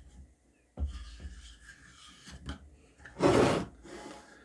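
A hex-drive screw being turned into wood by hand with a folding knife's screwdriver bit: faint creaks and ticks, then a louder rasping rub for about half a second, a little after three seconds in.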